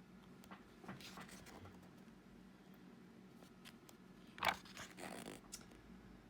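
Book pages being turned and handled: soft paper rustles, with one sharper page flick about four and a half seconds in.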